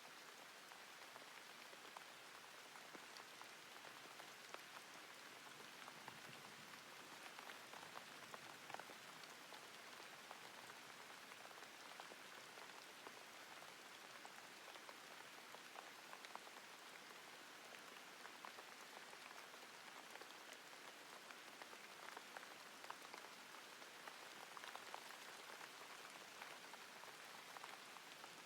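Near silence: a faint steady hiss with soft, scattered tiny crackles.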